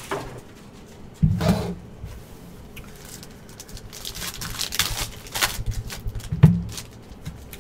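Trading-card packaging being handled on a table: a thump about a second in and another near the end, with scattered rustles and clicks of cardboard and wrappers between.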